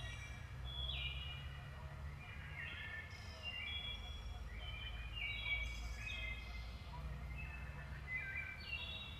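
Several songbirds singing, short overlapping phrases of quick stepped notes one after another, over a low steady rumble.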